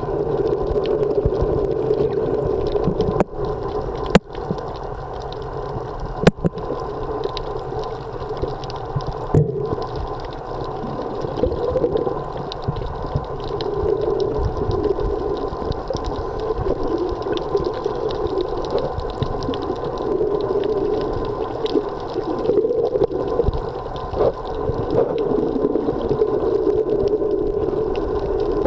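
Underwater sound picked up by a camera in the sea: a steady rushing hum that swells and fades every few seconds, with a few sharp clicks in the first ten seconds.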